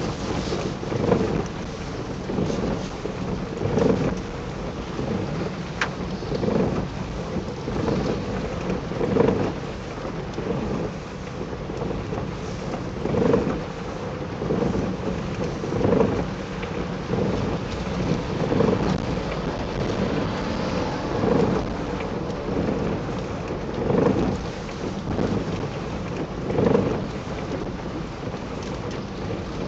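Road and engine noise inside a moving car's cabin: a steady rumble with regular swells about every two and a half seconds.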